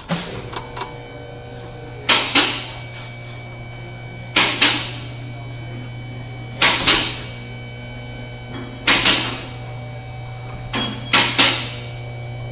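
Pro-Cut on-car brake lathe running with a steady hum, and a loud clunk repeating about every two seconds as it turns. The clunk is the sign that part of the setup has popped out of place.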